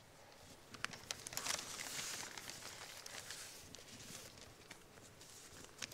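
Several paper envelopes being opened at once and the paper slips inside pulled out and unfolded: quiet rustling and crinkling of paper with scattered small crackles.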